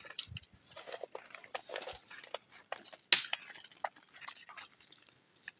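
Knife cutting and pulling the skin from a small antelope carcass: irregular short scrapes, rips and clicks, the sharpest about three seconds in.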